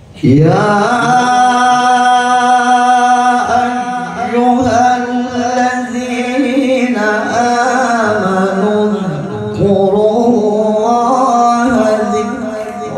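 A male qari reciting the Quran in melodic tilawah style into a handheld microphone. He enters with an upward swoop, then holds long, ornamented notes, pausing briefly for breath a few times.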